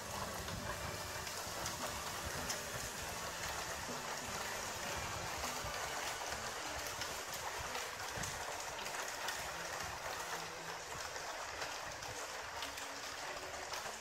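Hail falling steadily: a dense hiss of hailstones striking grass and a ledge close by, with many small sharp hits, over a low rumble.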